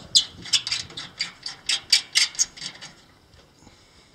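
Ratchet wrench clicking in an even run, about four clicks a second, stopping nearly three seconds in.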